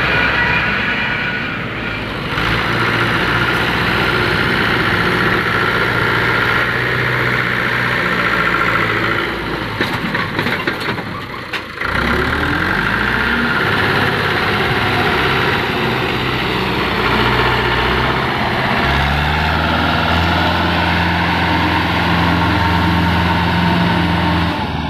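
Mahindra tractor's diesel engine running, pulling a sand-laden trailer. Its revs rise about halfway through, and from about three-quarters of the way a deeper, louder steady drone takes over.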